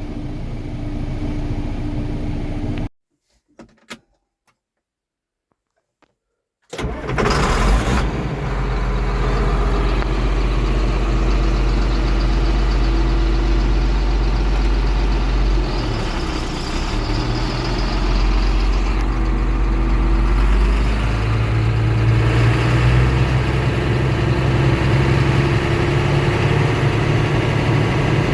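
Farm tractor engine running steadily. It drops out to near silence for about four seconds, then comes back louder and keeps running for the rest of the time.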